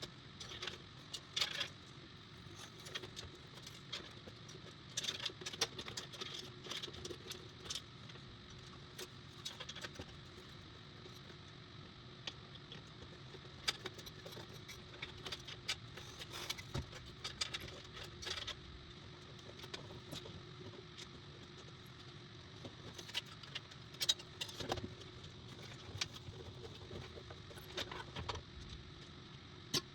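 Scattered small clicks and metal clinks of a PC case fan and its screws being handled and fitted into the case, irregular and spread throughout, over a faint steady hum.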